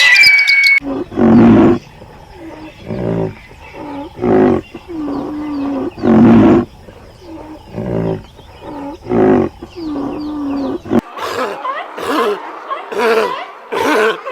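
A big cat roaring in a series of loud, deep roars, each followed by a quieter, lower grunting call. About eleven seconds in, a different animal takes over with short, sharp repeated calls; a brief bird chirp trails off at the very start.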